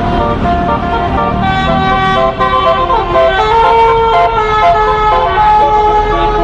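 Bus 'telolet' musical horns playing a tune of held notes, several sounding at once and stepping to new pitches every half second or so, over the low running of the bus engines.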